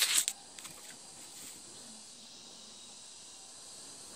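A brief rustle of handling noise at the start, then faint steady background hiss with a thin high-pitched whine.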